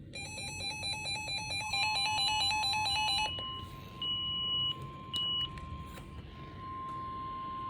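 Emergency Alert System tornado warning on weather radio. Rapid electronic alert beeping for about three seconds, then a steady single-pitch warning tone, the NOAA Weather Radio 1050 Hz alert tone, which starts a couple of seconds in and holds. Two short higher beeps sound around the middle.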